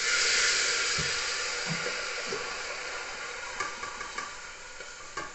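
Wet, washed dal going into a hot pan of frying masala: a loud steamy hiss and sizzle that starts suddenly and slowly dies down, with a knock of a utensil about a second in and a few small clicks near the end.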